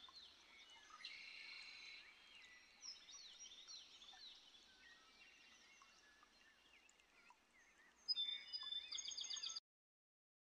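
Faint birds calling: many short, high chirps sweeping downward over a low background hiss. Near the end a louder run of rapid high-pitched notes starts suddenly, then all sound cuts off abruptly.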